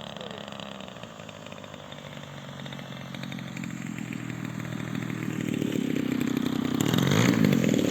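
Small piston engine of a radio-controlled Hawker Hurricane model flying. It grows steadily louder as the plane approaches, then passes close about seven seconds in with a shift in pitch.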